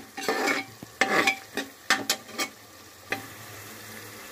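Metal spoon scraping and stirring onion paste frying in mustard oil in a pressure cooker: a quick run of scrapes and knocks against the pot for about three seconds, then a steady sizzle.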